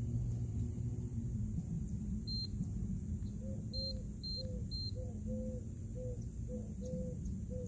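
Short high electronic beeps from a toy racing drone: a single beep about two seconds in, then three quick beeps around four seconds. From about three and a half seconds a run of short lower tones repeats about twice a second, over a steady low hum.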